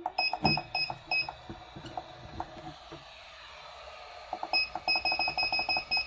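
Hot air rework station beeping in rapid short two-tone beeps, a brief run near the start and a longer one of about four beeps a second from about halfway, with a soft steady hiss in between.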